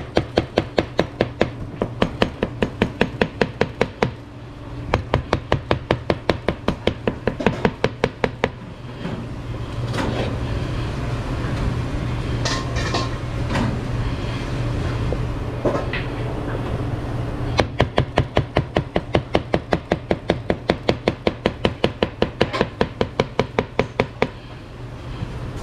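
A knife chopping fast on a cutting board, about five strokes a second, in long runs with a pause of several seconds in the middle. A steady low hum runs underneath.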